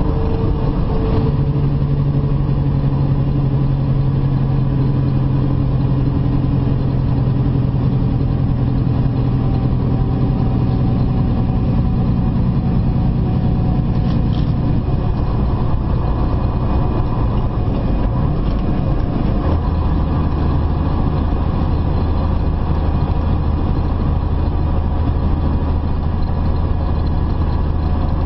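Semi truck's diesel engine and road noise, heard from inside the cab while cruising on the highway. The engine's low hum drops to a lower pitch about twenty seconds in.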